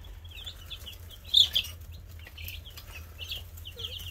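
Brood of Buff Orpington chicks peeping: many short, high chirps overlapping, with one louder chirp about a second and a half in. A low steady hum runs underneath.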